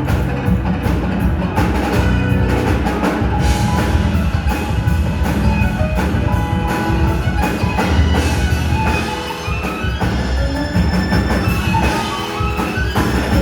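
Music with a steady beat of percussion and bright, mallet-like notes over held tones and a strong bass.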